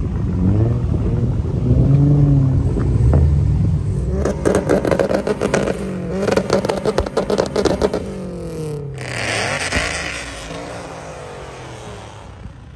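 Performance car engines revving and driving past, their pitch rising and falling. A burst of rapid crackling runs from about four to eight seconds in, and the sound fades near the end.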